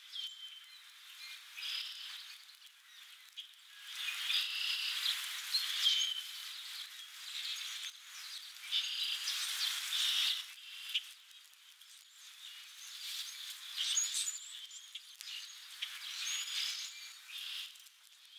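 Short, high bird chirps and whistled notes over recurring bursts of rustling noise.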